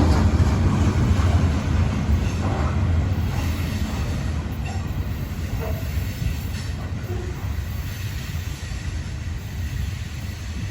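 Freight train rolling along the rails with a steady low rumble of wheels and cars that slowly fades.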